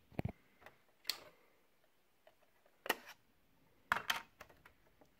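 Panasonic SR-DF101 microcomputer rice cooker clicking while it cooks: about six sharp clicks at uneven intervals, some in quick pairs.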